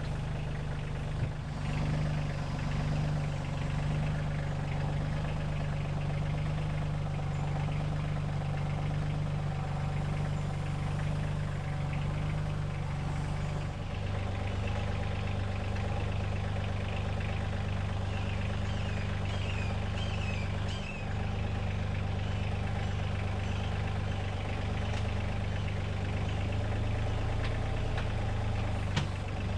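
Kioti CK2610 compact tractor's three-cylinder diesel engine running steadily; about halfway through its note drops to a lower, steady speed.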